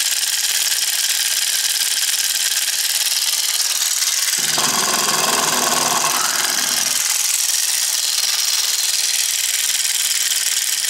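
Homemade 110-volt solenoid engine running steadily: a commercial solenoid pulls the crank round, and a cam-worked microswitch switches it on and off each turn, making a dense high-pitched mechanical noise.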